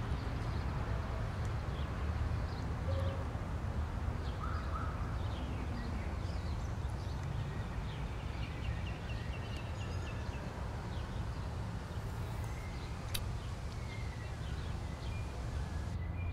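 Outdoor ambience: a steady low rumble with faint bird chirps scattered through, including a short run of chirps about two-thirds of the way in, and a single sharp click near the end.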